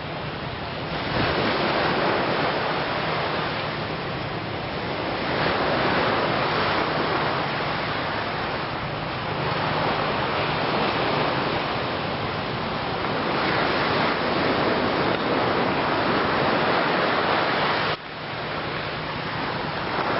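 Sea surf washing ashore: a rushing noise that swells and eases every few seconds, dropping out abruptly for a moment near the end.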